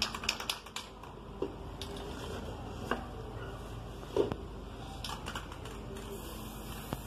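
Scattered light clicks and knocks from a picture frame being propped on a cut plastic bottle and adjusted by hand, the loudest knock about four seconds in. Near the end an aerosol spray can starts hissing again.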